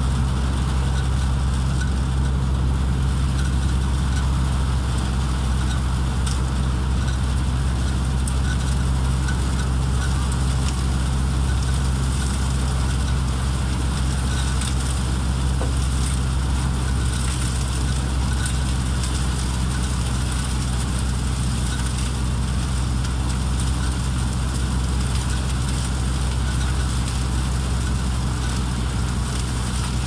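Peanut thresher running steadily, a deep even hum from its drive with a dense dry rustling hiss as peanut plants are fed through it.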